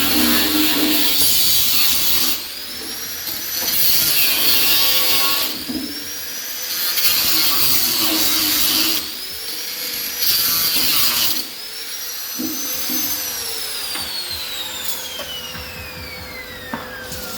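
Angle grinder working the steel body of a Vespa PX, pressed into the metal four times for a couple of seconds each. Between passes the motor speeds up with a rising whine. Near the end it is switched off and winds down with a falling whine over about four seconds.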